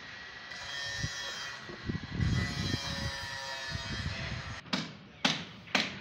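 A low rumble on a building site, then near the end three sharp hammer blows about half a second apart, from carpenters working on timber slab and beam formwork.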